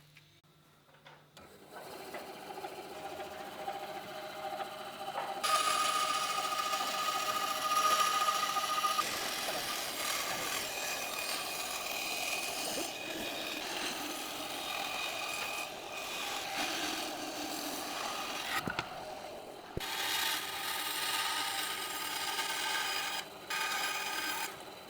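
Power tool working wood, a steady rasping sound with a faint motor whine underneath. It starts about a second and a half in, gets louder a few seconds later, and drops out briefly twice near the end.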